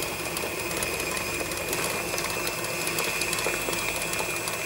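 KitchenAid Professional stand mixer running steadily as it kneads brioche dough in its steel bowl, the motor giving a constant, even whine.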